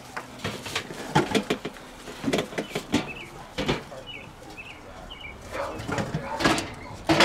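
Irregular knocks, clatter and scrapes as things are shifted around galvanized metal trash cans, heaviest near the start and again near the end. Small bird chirps sound faintly in between.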